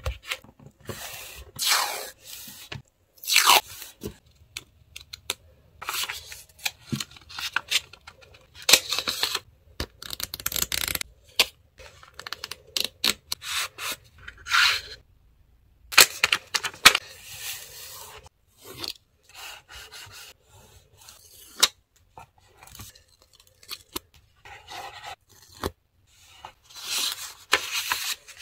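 Paper handled up close: journal pages opened and pressed flat, sticker sheets and cut paper pieces rubbed, scraped and peeled, in many short rustling strokes with brief pauses. The sounds stop entirely for about a second halfway through.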